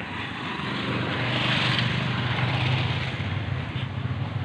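A passing engine: a low, steady hum that swells about a second in, peaks near the middle and slowly fades.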